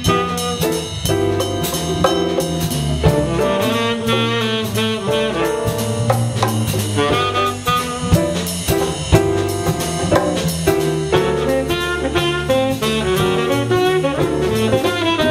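Small jazz combo jamming: a tenor saxophone improvises a melodic line over walking electric bass, a drum kit keeping a steady swing beat on the cymbals, and piano.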